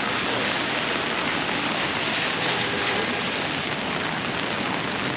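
Heavy rain falling steadily on wet pavement and on the umbrella overhead, an even hiss with no break.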